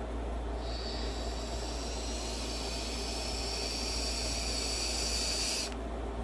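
Long drag on a box-mod vape: a steady airy hiss with a faint whistle as air is drawn through the atomizer, lasting about five seconds and cutting off suddenly near the end.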